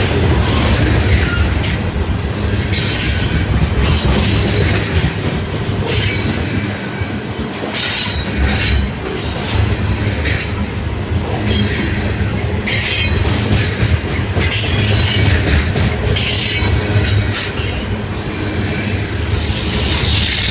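Loaded grain freight train's cars rolling past on the rails: a steady low rumble, with high-pitched wheel squeal that comes and goes every second or two.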